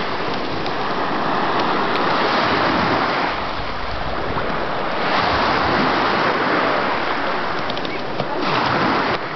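Sea water washing and splashing with wind buffeting the microphone, a steady rushing noise.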